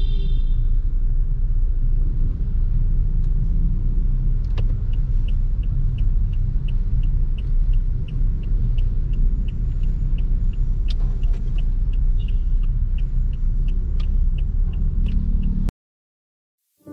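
Steady low engine and road rumble heard from inside a car's cabin while driving in traffic. From about five seconds in, an indicator flasher ticks regularly, about two to three ticks a second. The sound cuts off suddenly near the end.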